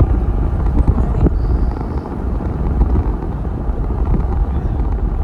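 Steady low road rumble of a moving car, heard from inside the vehicle, with uneven low buffeting.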